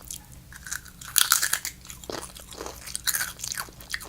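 Doritos tortilla chips being bitten and chewed: a run of crisp crunches in uneven bursts, the loudest a little over a second in.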